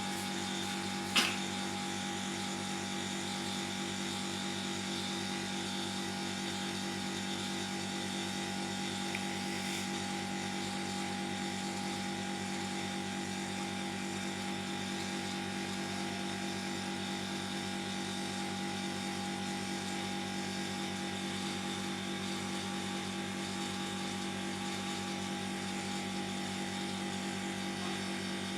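Steady motor hum with several fixed tones, unchanging throughout, with a single sharp click about a second in.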